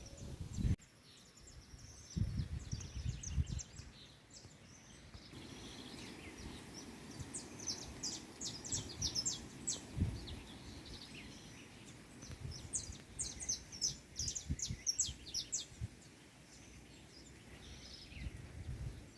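Birds chirping in quick runs of short, high calls, thickest through the middle, over a low, uneven rumbling.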